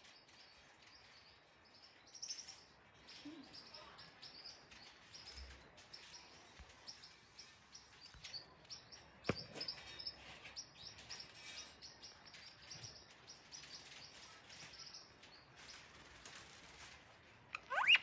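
Indian ringneck parakeet making soft, faint chirps, with a single sharp click about halfway and a louder, short rising whistle just before the end.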